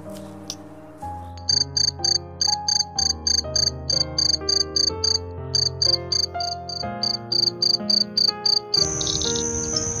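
Insect chirping in a long, even series of short high pulses, about four a second, giving way near the end to a continuous high-pitched trill.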